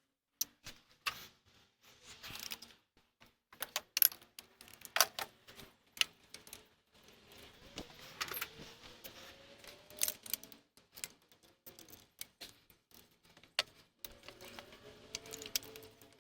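Metal hand tools clicking and clinking in short, irregular bursts, a wrench and socket working on a starter mounting bolt.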